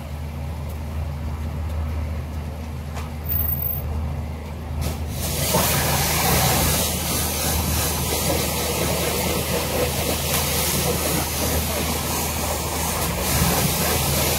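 Pressure washer running with a steady low hum; about five seconds in the lance opens and a high-pressure water jet hisses against the car's bodywork.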